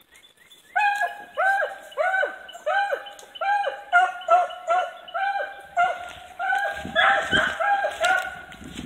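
Rabbit hounds baying on a rabbit's trail: a string of short bawls, each falling in pitch, about two a second, starting about a second in. Rough rustling of brush joins near the end.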